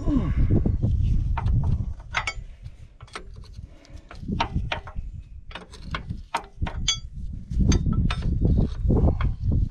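Hand tools clinking and knocking on metal hydraulic hose fittings: a string of sharp clicks and knocks, a few of them ringing metallic clinks. Under them is an uneven low rumble that fades in the middle and comes back near the end.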